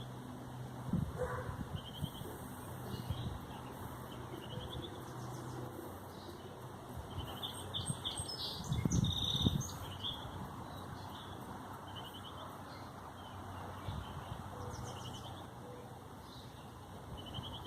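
Small birds chirping repeatedly, over a soft steady rush of fuel being poured into a chainsaw's tank, with a few handling knocks about nine seconds in.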